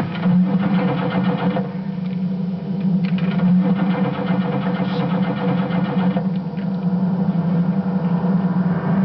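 Old truck's starter motor cranking the engine steadily without it catching, a fast, even, droning churn. The uploader puts the no-start down to a flooded engine.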